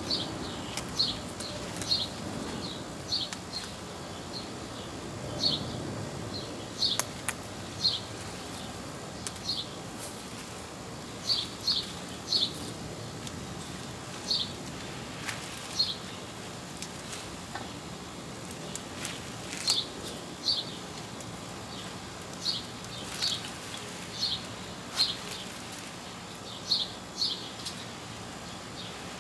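A small bird chirping over and over, short high chirps often in pairs, one or two a second, over a steady outdoor background, with a few sharp clicks.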